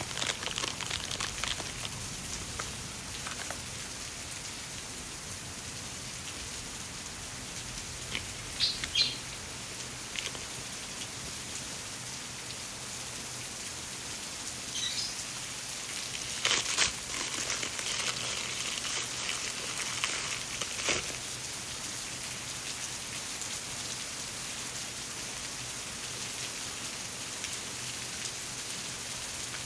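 A steady rain-like hiss, with short rustles and crinkles of hands handling washi tape in its plastic wrapping: a couple around 8 to 9 seconds in and a busier stretch from about 16 to 21 seconds.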